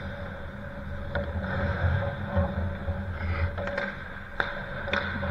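Ice hockey rink sounds during play: a steady low rumble and hum with a few sharp clacks of sticks and puck, the loudest a little past four seconds in.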